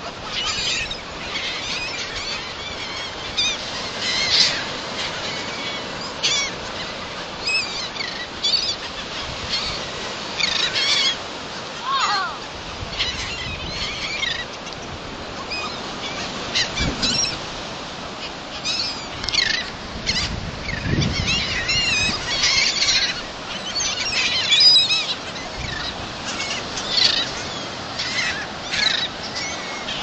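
A flock of gulls calling as they are fed: many short, overlapping squawks and cries, one after another throughout.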